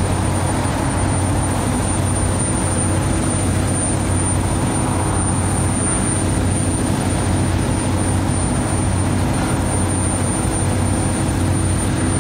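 Steady low mechanical hum with an even hiss over it, constant throughout with no distinct events.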